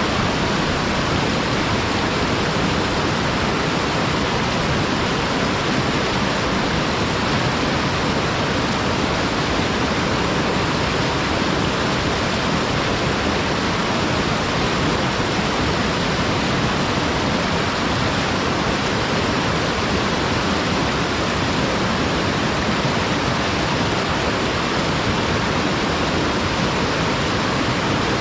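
Waterfall sliding straight down a flat, unobstructed rock slope, a steady, even wash of falling water with no change.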